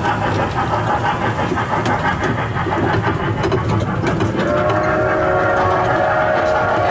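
Zoo ride train running along its track, with a steady rumble and light clicking of the wheels. A steady pitched tone comes in about four seconds in and holds.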